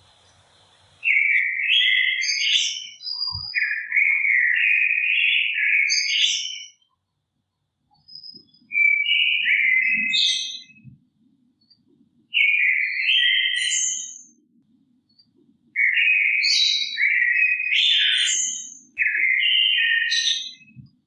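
A songbird singing in four bouts of quick, warbling phrases of chirps and trills, each a few seconds long, with short pauses between them.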